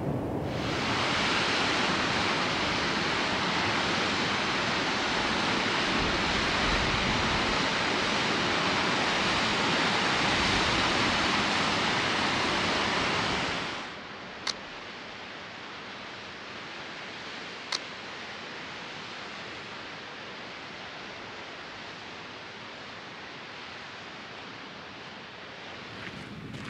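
Steady rushing of a river through a rocky gorge, loud at first, then cutting down abruptly about halfway to a softer, more distant rush. Over the softer part come two sharp single clicks about three seconds apart: the shutter of a Leica M3 film camera.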